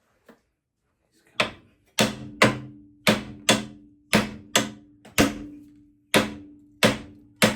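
Hammer blows on car body steel, about eleven strikes in quick uneven succession, each leaving the metal ringing with a low hum. It is the sound of bent brackets being knocked back into shape.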